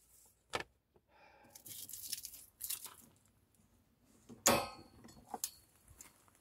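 Steel wire-mesh dog guard panels clinking and rattling as they are handled, with a series of sharp knocks and one loudest ringing metal clank about two-thirds of the way through.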